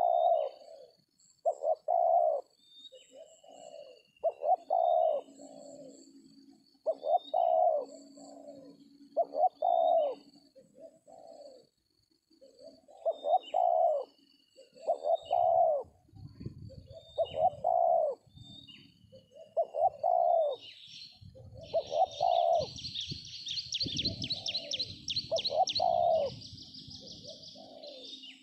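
Spotted doves cooing over and over, short phrases of a few soft coos about every second or two, with small birds chirping high above them. About twenty seconds in, a steady high rasping trill starts, and a low rumble runs under the middle part.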